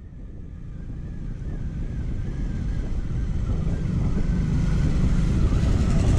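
Motorcycle on the move: engine running under wind noise on the microphone, mostly low-pitched and growing steadily louder.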